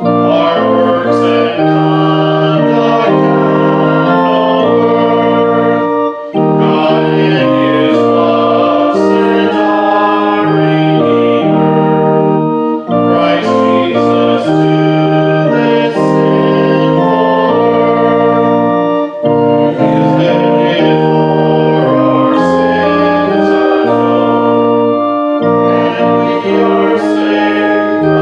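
Church organ playing a hymn in held chords, line by line, with a short break about every six seconds between lines.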